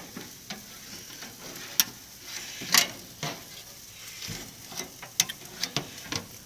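Ribs sizzling faintly on a grill, with several sharp clicks and knocks of the meat and grill being handled.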